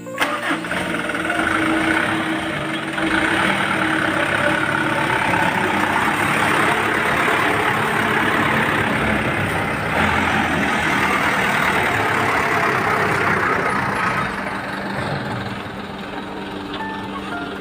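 Mitsubishi palm-fruit truck's engine running steadily, with a dense rushing noise over it, easing a little near the end.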